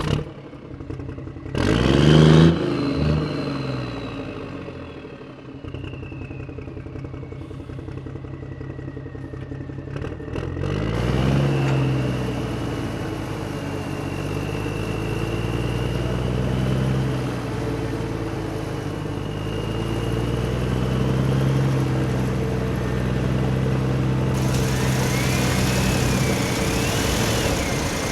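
Engine sound of the RC construction toys, idling and revving up twice, with a thin high whine from their small electric motors rising and falling over it.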